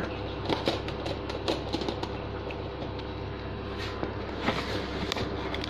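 Scattered light clicks and knocks of kitchen containers being handled on a countertop, over a steady low hum.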